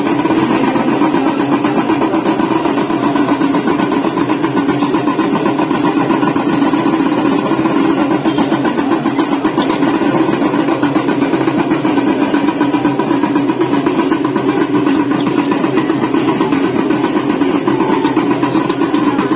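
Steady, rapid ringing and beating of Ganga aarti bells and drums, dense and unbroken.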